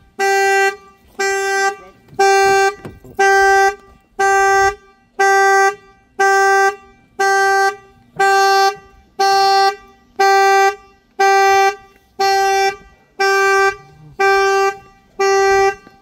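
Chevy Cruze's anti-theft alarm sounding its horn in steady honks about once a second, set off by the door being opened without the key. The honking stops near the end.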